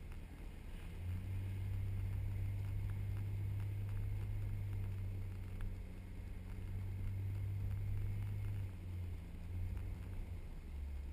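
Engine of a four-wheel-drive vehicle driving over soft beach sand, a steady low drone that grows louder about a second in and eases near the end, heard from outside the vehicle.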